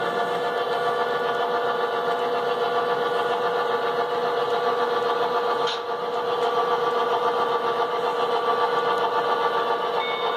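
Model railroad freight train moving slowly along layout track: a steady mechanical hum with several held tones, and a brief click about six seconds in.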